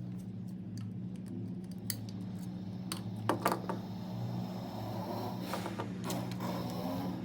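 Small metallic clicks and scrapes from a screwdriver and copper wire at a wall switch's screw terminal as a wire is fitted and tightened, with a cluster of sharper clicks about three seconds in, over a steady low hum.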